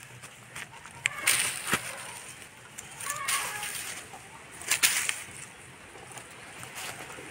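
Rustling and crunching of dry leaf litter and twigs as young game fowl step and scratch about. It comes in a few short bursts, about a second in, around three seconds in and near five seconds in, with light clicks of twigs between them.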